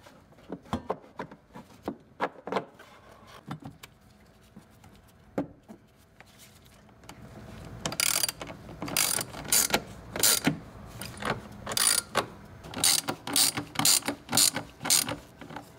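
A few scattered clicks and knocks as the new blower motor is seated in its housing, then, from about halfway on, a hand ratchet clicking in quick runs as the motor's mounting screws are driven in.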